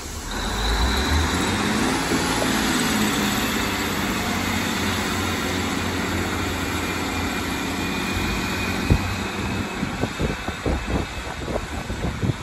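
Class 155 diesel multiple unit pulling away, its underfloor diesel engines opening up about half a second in and running under power as the train moves off, the engine note rising in the first few seconds. Wind buffets the microphone in the last couple of seconds.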